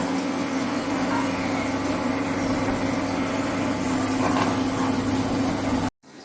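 A steady mechanical hum with one strong held pitch, starting and stopping abruptly at edits.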